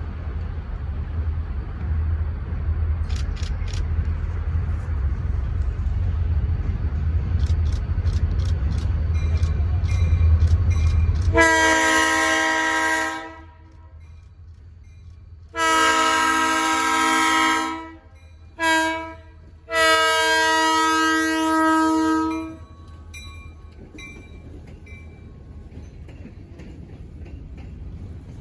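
Diesel locomotive's air horn sounding the grade-crossing signal: two long blasts, a short one and a long one, starting about eleven seconds in and ending near two-thirds of the way through. Before the horn there is a loud low rumble, and after it a quieter rumble with light clicking.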